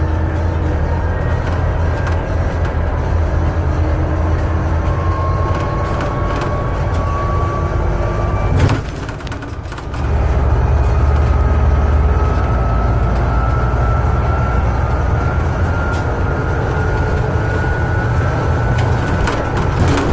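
Interior sound of a Scania Citywide CN280UB city bus under way: its 280 hp compressed-natural-gas engine running with a steady low drone and a faint slowly rising whine. About nine seconds in there is a click and the drone drops away for about a second, then picks up again a little louder.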